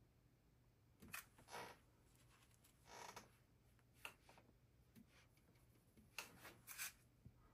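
Faint strokes of a small paintbrush working oil paint on a painting panel: about seven short, soft scrapes, some in quick pairs, over a low room hum.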